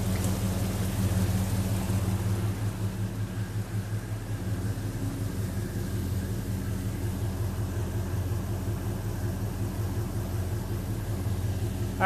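1969 Dodge Super Bee's V8 engine idling steadily with the air-conditioning compressor engaged, while the AC system settles its pressures.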